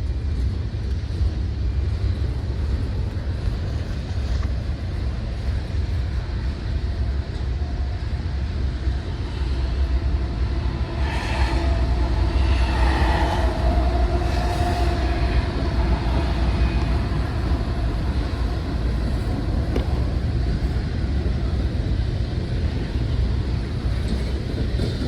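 Freight train rolling past: a steady low rumble of wheels on rail that grows louder through the middle, with a couple of held tones mixed in.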